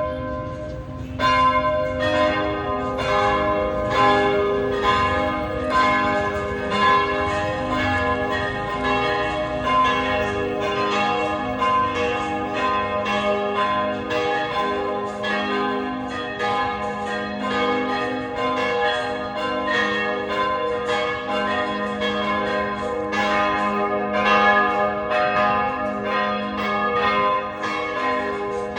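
Church bells ringing in a continuous peal, several bells of different pitches struck over and over at about two strikes a second, their tones ringing on and overlapping. A low rumble sits underneath for roughly the first ten seconds.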